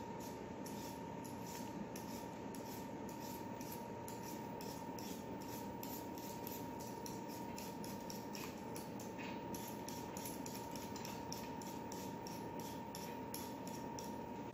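Potatoes being peeled by hand, the blade scraping off the skin in short, regular strokes about three to four a second.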